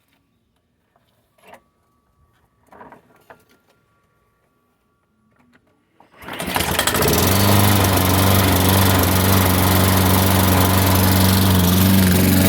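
A push lawn mower's small engine catches about six seconds in after a few faint clicks and knocks, then runs steadily at full speed. The mower will not start without starting fluid, which the owner puts down to a primer bulb that isn't working.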